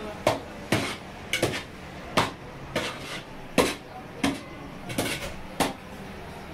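Metal serving spoon clanking and scraping against a large metal rice pan and ceramic plates as rice is dished up: about ten sharp knocks at uneven spacing, stopping shortly before the end.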